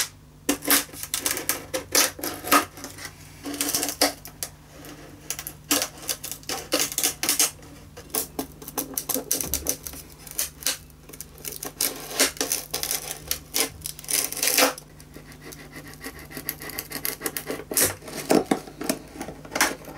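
A butter knife prying the glued top off an old three-quarter violin: irregular clicks, scrapes and sharp cracks as the knife works along the seam and the glue joint between top and ribs gives way, with a few louder cracks spread through.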